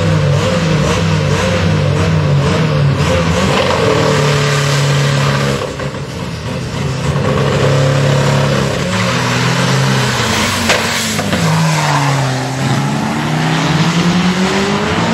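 Two drag-racing cars' engines revving hard at the start line, the revs jumping up and down in quick bursts and then held. About eleven seconds in they launch and accelerate away, the engine pitch rising.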